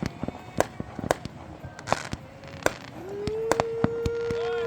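Fireworks going off: a run of separate sharp bangs and crackles. About three seconds in, a long steady tone rises into place and holds beneath the bangs.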